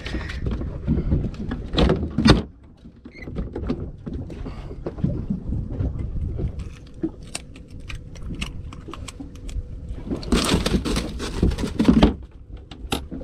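Scattered knocks, clicks and thumps of fishing gear and fish being handled on a boat, over a low rumble. There are two louder rushing stretches, a short one about two seconds in and a longer one near the end.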